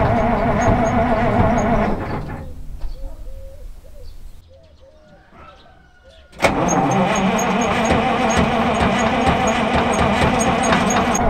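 Ural 375D truck's V8 petrol engine running. About two seconds in, its sound dies away to a lull. About six and a half seconds in it comes back abruptly and runs steadily again.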